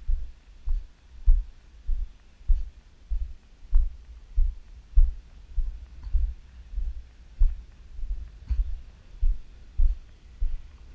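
Footsteps of the person carrying the camera, heard as dull low thuds at an even walking pace of about three steps every two seconds, each with a faint crunch of dry gravelly ground.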